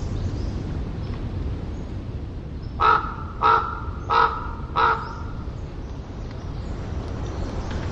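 Common raven giving four short calls in quick succession, about two-thirds of a second apart, over the constant low rumble of the ocean in the distance.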